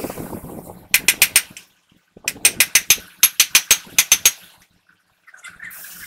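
Sharp metallic clicks from parts being handled at a truck's wheel hub: four quick clicks about a second in, then an even run of about a dozen, about five a second, lasting two seconds, with soft scraping and rustling before and after.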